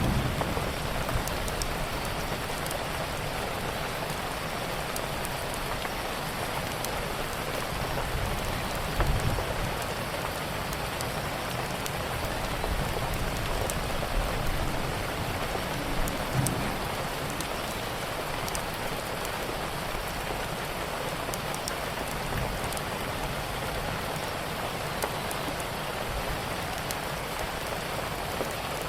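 Steady rainfall, an even patter with scattered sharp little ticks of drops. A brief low thump rises out of it about nine seconds in, with smaller ones later.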